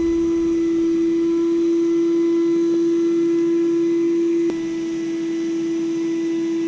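Steady electric whine of a bass boat's trolling motor holding one pitch, with a sharp click about four and a half seconds in, after which it runs slightly quieter.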